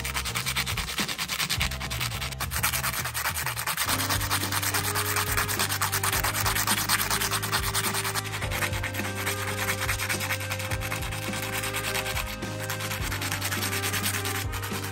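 Aluminium pop rivet rubbed back and forth on black sandpaper in quick short strokes: a continuous gritty scraping of metal on abrasive grit.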